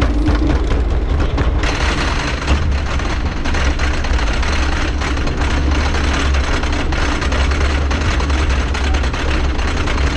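Wooden roller coaster train being pulled up the chain lift hill: a steady low drone from the lift chain and drive, with a dense clatter of clacks from the chain and the anti-rollback ratchets along the track.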